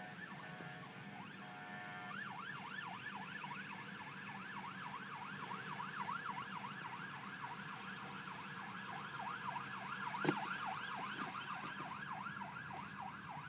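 Emergency vehicle's electronic siren, pulsing on fixed notes at first, then switching to a fast yelp that sweeps up and down about four times a second. A single sharp knock comes about ten seconds in.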